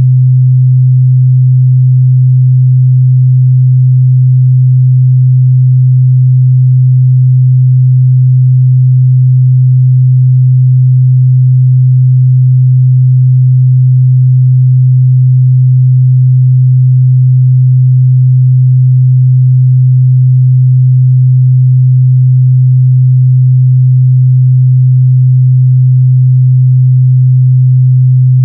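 Steady, loud 128 Hz sine-wave test tone: a single unbroken low hum with no change in pitch or level.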